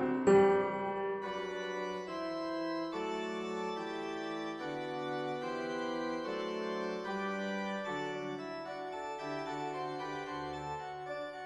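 Background music: soft sustained organ-like keyboard chords changing slowly.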